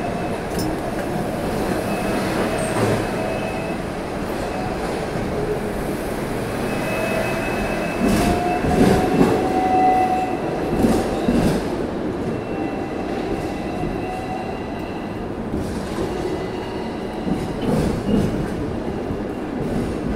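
Hong Kong double-decker electric tram running along street track, heard on board: a steady rumble of steel wheels on rail with high wheel squeal that comes and goes. A run of knocks and clunks comes about eight to twelve seconds in and again near the end.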